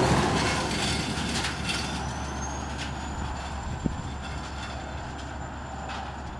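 A road train hauling an oversize load passes close by and its noise fades gradually, leaving a steady low hum underneath.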